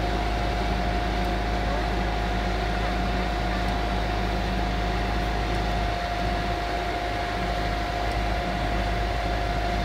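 Hitachi compact crawler excavator's diesel engine running steadily, with a steady whine over its low hum, as the boom and arm are worked.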